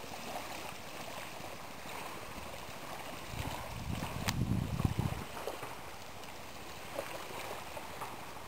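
Steady outdoor wash of light wind and small waves lapping on a sandy shore. A gust of wind buffets the microphone from about three and a half to five seconds in.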